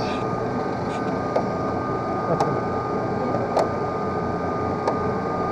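Steady mechanical hum with a high, even whine from an open cable lift running along its steel cables, with a few sharp clicks.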